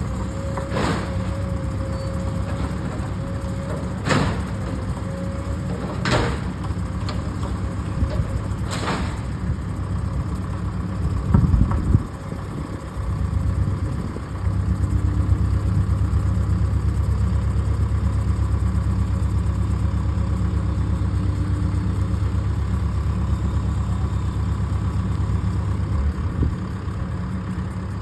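A large engine running steadily with a low rumble, with a few sharp knocks in the first nine seconds. It gets louder about halfway through and holds there.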